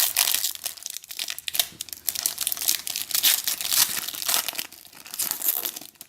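Plastic wrapper of a trading-card pack crinkling and tearing as it is ripped open, an irregular run of crackles.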